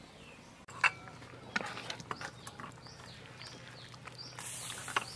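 A metal ladle clinks against a metal cooking pot a few times while soup is stirred, with small birds giving short falling chirps throughout. Near the end there is a brief splashing hiss of liquid being poured into the pot.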